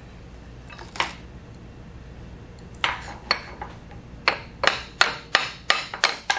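Hand hammer tapping on steel parts of a Monarch 10EE lathe spindle assembly: one sharp tap about a second in, then a run of about nine quick taps, roughly three a second, from about three seconds in.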